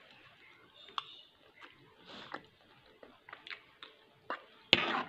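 Quiet eating sounds: scattered light ticks of a fork and spoon against a plate, and chewing. A short, louder noise comes near the end.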